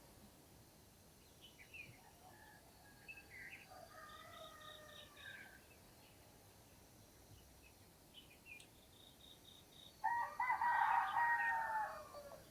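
A rooster crowing loudly about ten seconds in, one call of about two seconds. Before it come fainter, more distant calls and small birds chirping, including short runs of rapid high pips.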